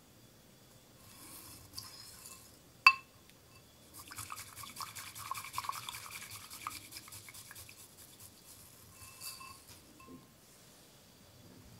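Bamboo tea whisk (chasen) swished briskly through hot water in a green Oribe-ware tea bowl: a quick, even run of strokes at roughly eight a second that fades out after about three seconds. It follows a single sharp clink on the ceramic bowl about three seconds in. The whisk is being rinsed and the bowl warmed before the tea is made.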